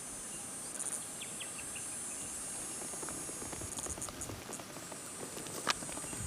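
Steady high-pitched insect chorus, crickets or cicadas, with a few short bird chirps around a second in and one sharp knock near the end.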